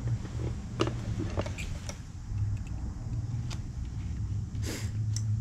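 Light metal clicks and short scrapes of a pick working at the snap ring in a control arm's ball-joint end, over a steady low rumble.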